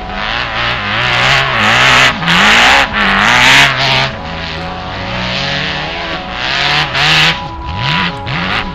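Off-road buggy engine revving hard and unevenly as the buggy slides on snow, its spinning wheels adding a rushing spray noise that is loudest from about one to four seconds in. Near the end the engine is blipped in quick repeated revs, rising and falling.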